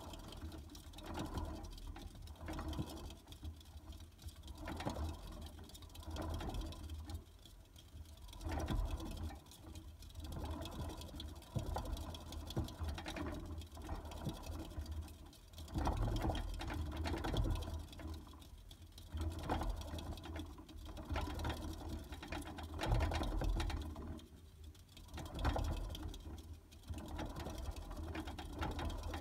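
Plastic hamster exercise wheel spinning under a running hamster: a steady mechanical whirring rattle that swells and eases every few seconds as the pace changes.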